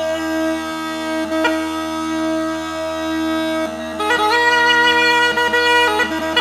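Instrumental Bulgarian folk tune: a wind instrument plays a melody in held notes that step up and down over a steady drone. The melody grows louder and brighter about four seconds in.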